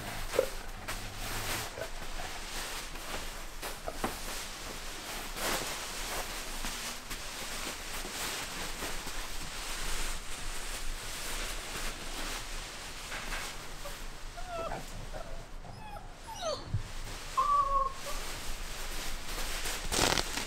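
German wirehaired pointer puppies whimpering and yipping in short, high whines, clustered in the last third, over the scuffling and rustling of play on cushions.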